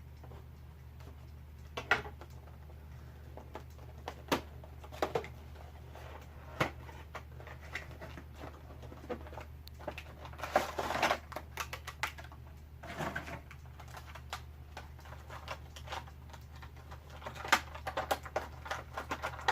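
Cardboard and plastic action-figure packaging being opened and handled: scattered sharp clicks and crinkles, with a denser stretch of crinkling about ten seconds in and another a few seconds later, over a low steady hum.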